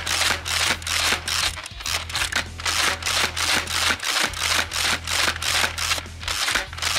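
Zuru X-Shot Crusher spring-powered foam-dart minigun slam-firing: the pump is worked over and over with the trigger held, giving a fast, even run of plastic clacks, about four a second, as the spring primes and releases dart after dart off the chain.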